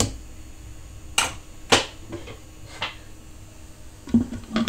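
Metal ladle knocking and scraping against an aluminium pressure cooker as the mutton mixture is stirred: a few separate sharp clinks, then a quick cluster of metallic knocks near the end as the lid is set on the cooker.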